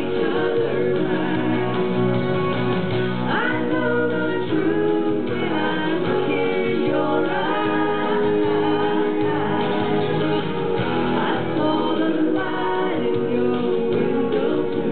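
A woman singing a song into a handheld microphone over music with guitar accompaniment.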